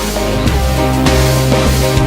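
Outro music: loud rock with distorted electric guitar and a steady beat.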